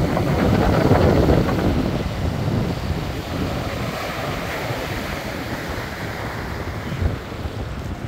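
Small waves breaking on a sandy beach and washing up the shore, loudest in the first second or two and then easing off, with wind rumbling on the microphone.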